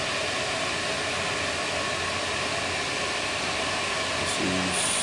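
Steady whirring hiss of a running motor with a faint hum in it, and a brief high-pitched tone right at the end.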